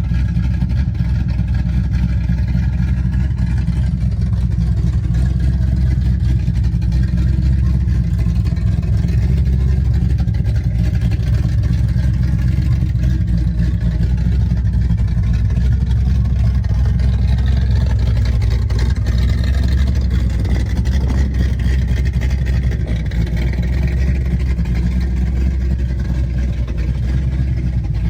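A 1967 Pontiac Firebird's 400 cubic-inch V8 running steadily while the car is driven, a deep, even exhaust drone with little change in revs.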